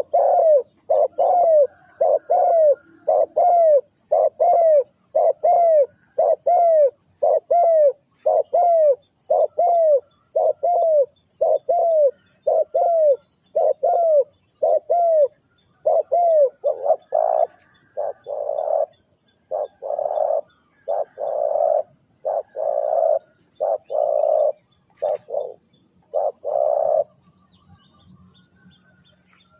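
Spotted dove cooing, a long run of repeated low coo notes that stop shortly before the end. Faint high chirps of small birds sound underneath.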